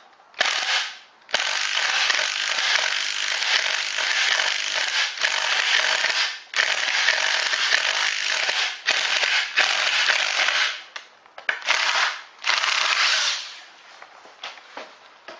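Power drill driving a ceramic-coated decking screw through timber in several long bursts with short pauses, the screw grinding into the wood under load, stopping about two seconds before the end.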